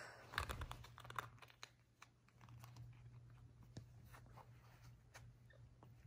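Faint scattered clicks and scratchy rustling as a white-faced capuchin monkey grips and bites at a glittery, fur-lined slipper.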